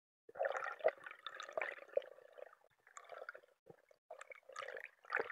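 Underwater bubbling and gurgling picked up through an underwater camera, in irregular crackly bursts with short breaks.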